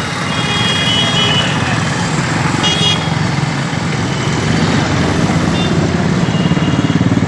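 Busy road traffic, with vehicle engines running and car horns honking several times: early on, about three seconds in, and again near the end.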